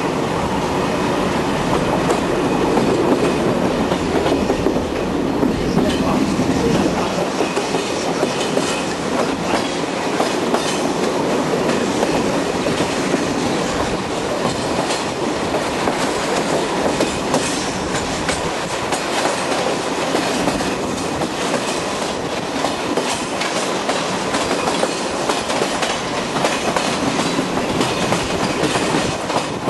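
Train running along the track, its wheels clicking over the rail joints under a steady rumble of running noise.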